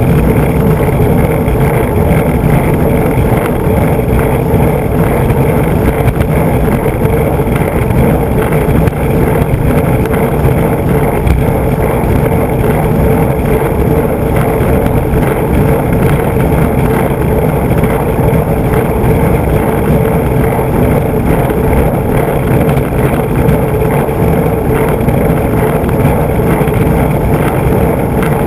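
Skateboard wheels rolling fast over rough asphalt: a loud, steady road roar with a hum running through it, picked up by a camera mounted right under the board beside the truck.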